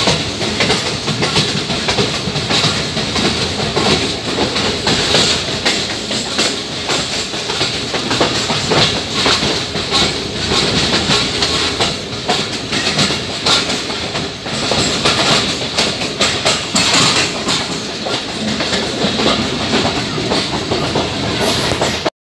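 Pakistan Railways train rolling along the track, a steady rushing noise with the wheels clattering over rail joints. It cuts off suddenly near the end.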